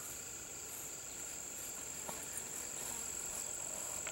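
Insects in the surrounding grass and brush trilling steadily, a constant high-pitched drone, with a faint tick about two seconds in.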